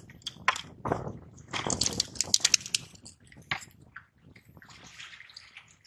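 A plastic bait cage and the wet mesh of a collapsible crab trap being handled as the cage is fixed inside: a quick run of small clicks and taps about two seconds in, then a soft rustle near the end.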